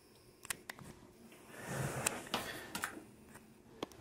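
Faint handling noise from working the toilet's water supply line fitting loose by hand: a handful of small clicks and rattles, with a brief rustle in the middle.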